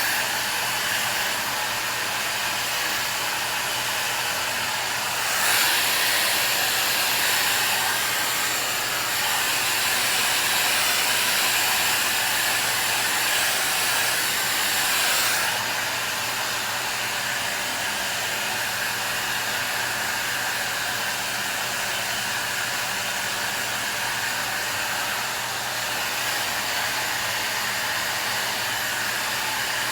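MonoMono Dreamworld 1800-watt ionic hair dryer with an AC motor running as it blows hair dry: a steady whoosh of air over a low motor hum. It gets louder for a stretch from about five seconds in to about fifteen seconds in.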